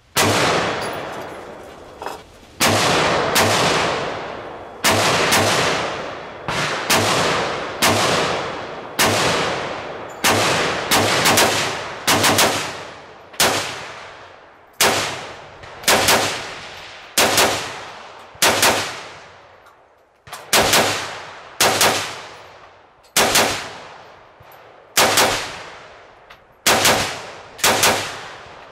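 Gunshots fired one at a time, more than twenty of them at roughly one a second, now and then two close together, each followed by a long echoing decay.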